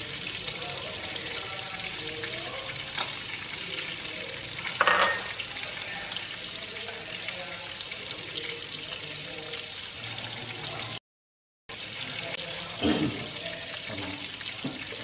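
Climbing perch frying in oil in a pan, a steady sizzle, with a light clink about five seconds in. The sound cuts out for a moment after about eleven seconds.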